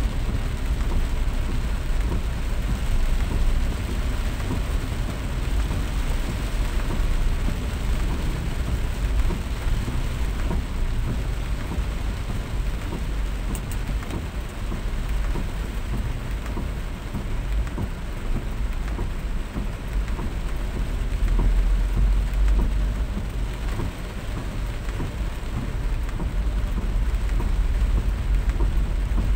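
Steady rain falling, with a strong low rumble underneath.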